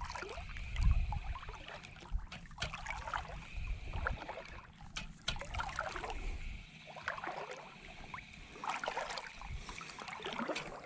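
Shallow water sloshing and trickling around a wading angler's body, with wind rumbling on the microphone, loudest about a second in.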